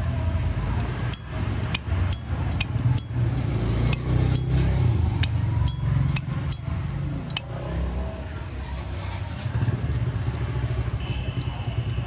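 Zippo lighter being handled: about a dozen sharp metal clacks, irregularly spaced over some six seconds, as the hinged lid is flipped open and snapped shut, over a low steady rumble.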